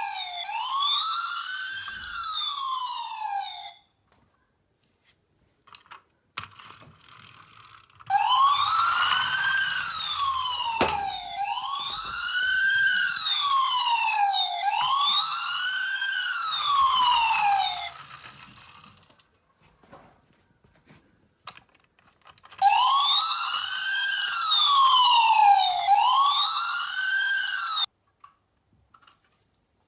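Electronic wail siren of a toy ambulance, rising and falling every two to three seconds. It sounds in three spells, stopping and restarting, with small plastic clicks and rattles in the gaps.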